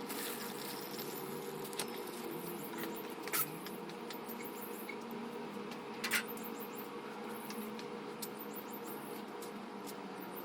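Engine oil from a Kawasaki KX450F draining out of the open drain-plug hole into a pan: a steady, faint trickle with a low hum underneath and a few light clicks.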